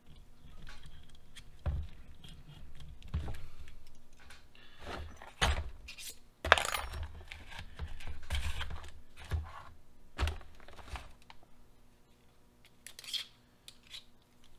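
Small metal hand tools clinking and rattling in a plastic tool case as they are sorted through for the right size, with a sharp clack about six and a half seconds in.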